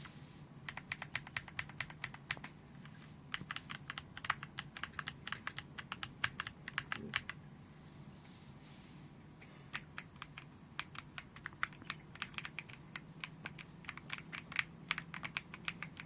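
SURMEN 75% mechanical keyboard being typed on in quick runs of keystrokes, with a pause of about two seconds midway, over a faint low hum.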